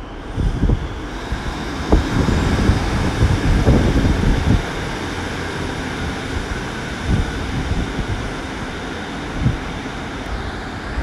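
Class 150 Sprinter diesel multiple unit pulling out of the platform under power, its underfloor diesel engines running steadily as it draws away.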